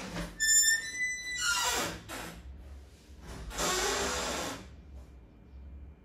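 Short blasts of air blowing dust out of a laptop's plastic casing, two hissing bursts about two seconds apart, after a brief high whistle near the start.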